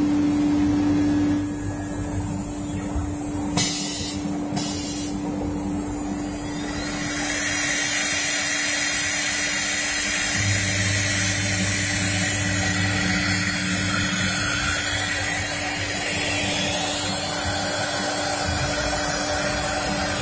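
Three-head pneumatic CNC router working, its spindles giving a steady whine over machine noise. There are two short hisses about four seconds in, and from about seven seconds the sound grows fuller, with a higher whine added.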